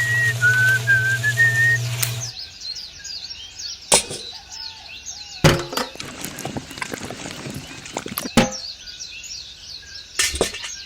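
A whistled tune over a steady low hum with birds chirping behind it, cut off about two seconds in. After that, birds chirp on their own and four sharp knocks come a second or more apart.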